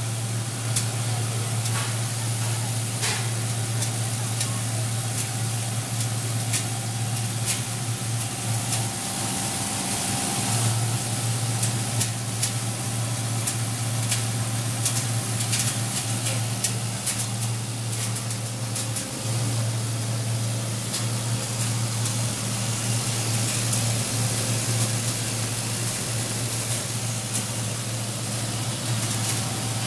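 Dry coffee huller running steadily, its small engine giving a constant low drone, with a dense hiss and pattering of hulled green coffee beans and husk falling out of the discharge chute into a plastic bucket.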